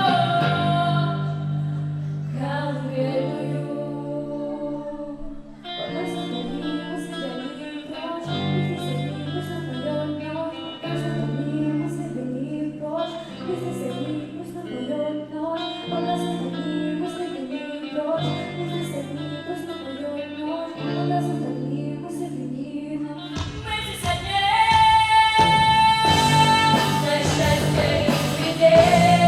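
Music from a song: an instrumental passage with sustained chords changing every two to three seconds, swelling fuller and louder about 23 seconds in, where a long high note is held.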